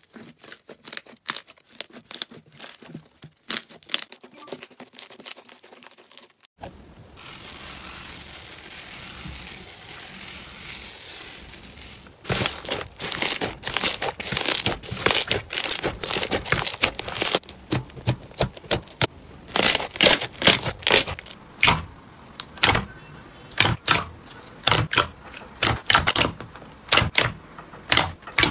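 Slime squeezed and pressed by hand, giving rapid crackling clicks and pops, with a stretch of steady hiss in the middle.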